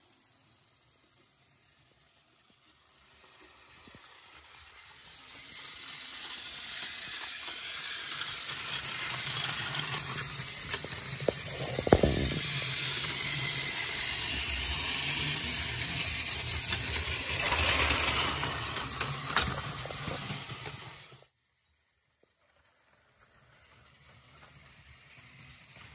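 Battery-powered plastic toy train running on plastic track: a small electric motor whirring over the rattle of its wheels, with a few sharp clicks. It grows louder over the first several seconds and cuts off suddenly about 21 seconds in, then returns more quietly near the end.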